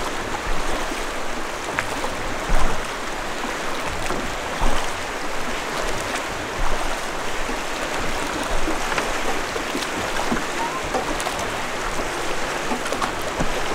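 Fast, riffled river water rushing steadily around a drift boat being rowed, with a few short knocks.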